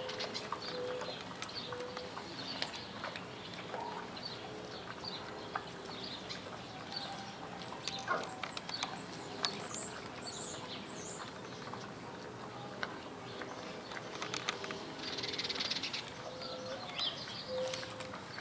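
Red river hogs foraging in dry dirt and straw, with scattered clicks and crunches from rooting and hooves. Short, soft, evenly repeated low notes come near the start and again near the end, and small birds chirp high above them.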